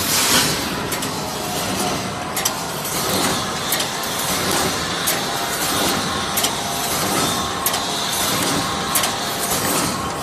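Automatic wire mesh resistance welding machine running, a steady mechanical noise with a sharp clack about every second and a quarter as it goes through its welding cycle.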